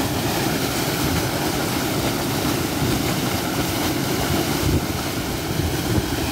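Torrent of muddy water gushing from the outlet pipe of an electric irrigation pump and crashing into a churning channel: a loud, steady rush of water, heaviest in the low range.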